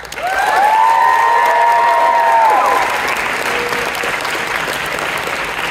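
Theatre audience applauding, with several high-pitched cheers and whoops over the clapping in the first few seconds. The clapping then carries on steadily.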